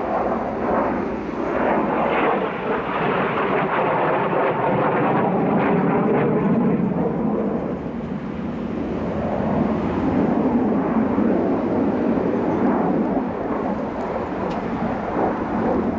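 Jet noise from a Kawasaki T-4 jet trainer's twin turbofan engines as it flies aerobatic passes: a loud rushing sound whose pitch slides down a few seconds in. It dips about halfway through, swells again and eases near the end.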